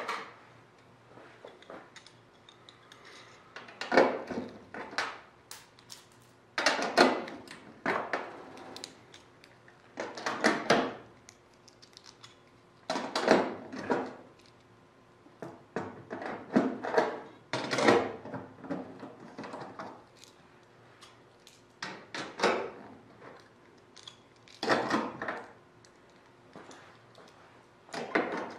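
Cleco sheet-metal fasteners being pulled one by one out of an aluminium wing skin with cleco pliers: a short metallic click-and-rattle every two or three seconds.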